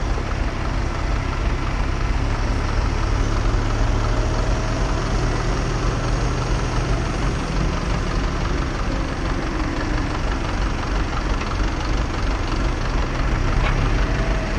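Farm tractor diesel engines running steadily at close range, a front-loader tractor working beside another tractor with a hay trailer.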